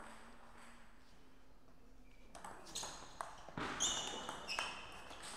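Table tennis rally: the celluloid ball clicking off rackets and table several times in quick succession, starting about halfway in. Short high-pitched squeaks of shoes on the court floor come in among the later strokes.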